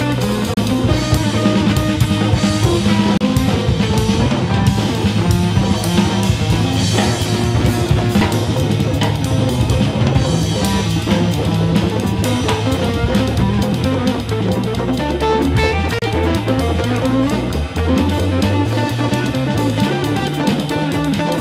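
A band playing steady music: guitar and bass over a drum kit.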